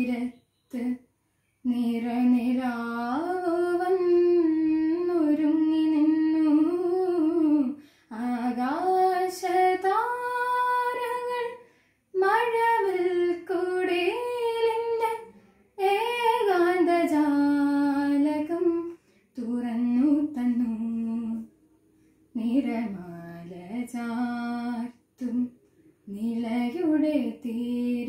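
A teenage girl singing a light-music song solo and unaccompanied, in long held phrases with short pauses for breath between them, in a small room.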